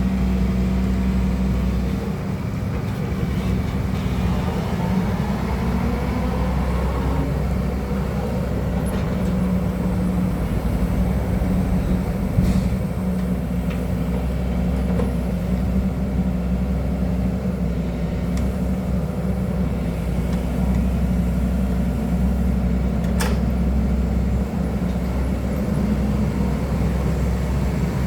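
Excavator's diesel engine running steadily under working load, with a couple of sharp knocks from the machine.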